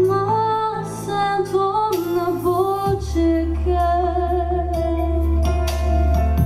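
A woman singing a slow ballad into a microphone over a backing track, her melody gliding between notes and then settling into a long held note with vibrato from about halfway in until near the end.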